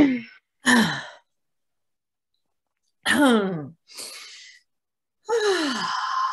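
A woman's voiced sighs, each falling in pitch. There is one about a second in and another about three seconds in, then a short breath, then a longer sigh near the end that trails off into a breathy exhale.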